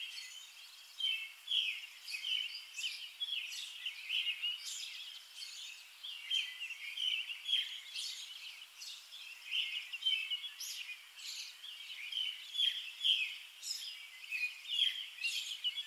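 Birds chirping: a continuous run of short, quick, overlapping chirps from several birds.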